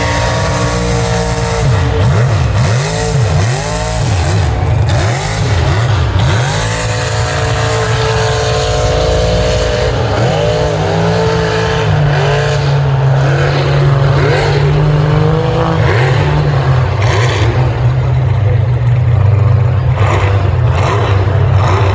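A vehicle engine revving hard again and again, its pitch climbing and dropping in quick sweeps, then holding a steadier high note through the second half.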